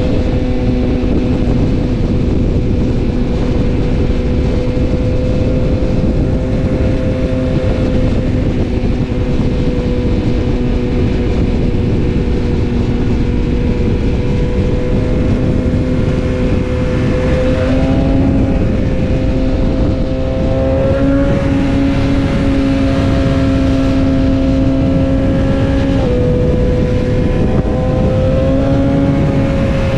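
BMW S1000RR inline-four running at steady highway cruising speed, under heavy wind rush on the microphone. The engine note holds one pitch, then rises a little a few times in the second half and dips once near the end as the throttle is eased on and off.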